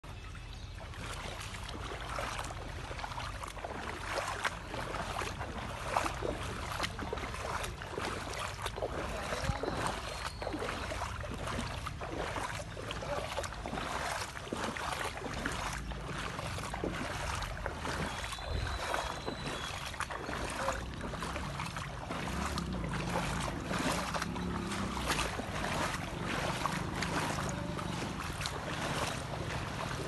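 Wind buffeting the microphone outdoors: a steady low rumble broken by frequent crackles and gusts.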